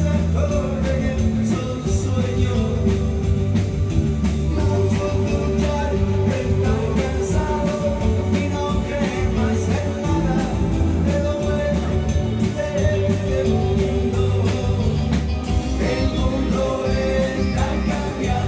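A band playing, with a man singing into a microphone over a drum kit, an electric keyboard and an electric guitar.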